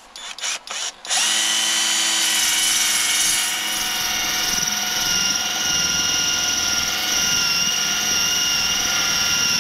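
Cordless drill spinning a 77 mm backing pad with a 120-grit sanding disc against an alloy wheel rim, sanding out kerb damage: a steady motor whine over the rasp of the disc on the metal. A few short blips come in the first second, then it runs continuously from just over a second in.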